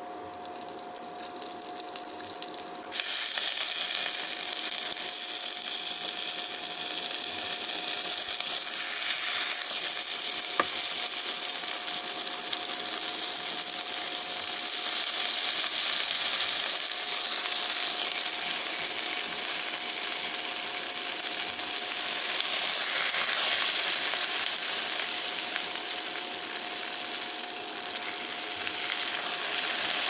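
Coconut oil in a steel pan sizzling softly around frying coriander seeds, shallots and garlic; about three seconds in, a heap of wet herb leaves goes into the hot oil and the sizzling suddenly turns loud and stays loud.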